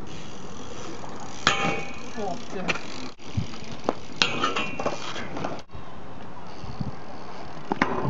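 BMX bike clanking and grinding on a steel rail: several sharp knocks and a metallic scrape that rings briefly, about four seconds in, over a steady background hiss. The sound cuts out briefly twice.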